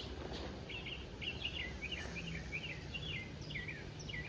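A songbird singing a quick string of short, warbling chirps over a steady low background rumble.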